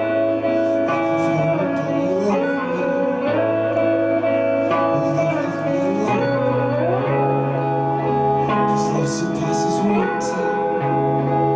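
Live psychedelic band playing: held chords over a bass line that steps between long notes, with gliding guitar lines and cymbal hits coming in near the end.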